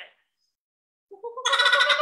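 Laughing kookaburra starting its laughing call about a second in. The call is a loud series of rapid, pitched chuckling notes that steps up in pitch and keeps going.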